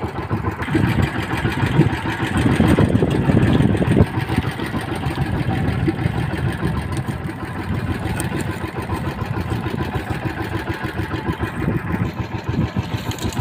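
Small boat engine idling steadily with a fast, even pulse.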